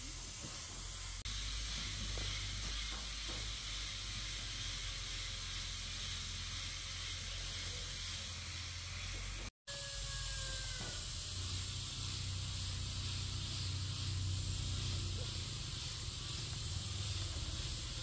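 Steady hiss with a low rumble underneath, broken by a sudden brief dropout about halfway through.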